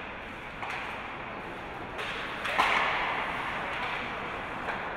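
Ice hockey play on the rink: skate and stick noise with a few sharp knocks, getting louder about halfway through.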